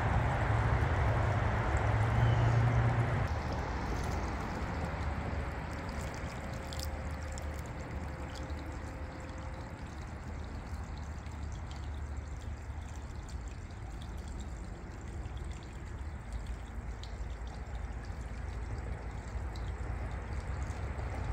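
Water pouring and trickling steadily. A low hum runs under it for the first three seconds, then stops.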